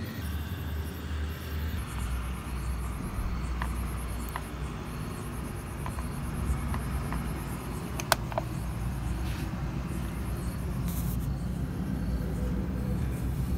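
Steady low hum with a few small clicks and taps of hands fitting a greased bush and lock onto a gear shift cable end; the sharpest click comes about eight seconds in.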